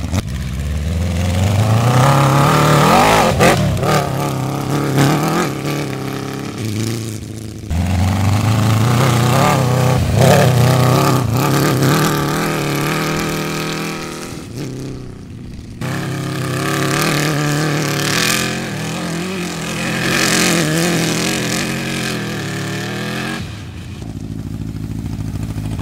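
Off-road buggy's Honda CBR1000RR inline-four superbike engine revving hard, its pitch climbing and dropping away several times, with a brief easing off about two-thirds of the way through.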